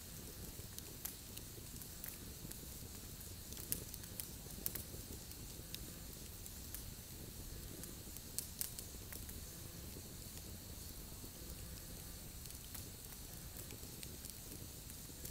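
Wood campfire burning: a steady low rush of flame under frequent small crackles, with a few sharper pops about four seconds in and again about eight and a half seconds in.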